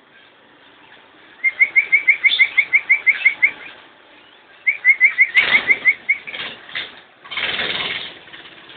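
Lovebirds chirping in two quick runs of rapid, evenly spaced chirps, about seven a second, then a short burst of wing flapping near the end.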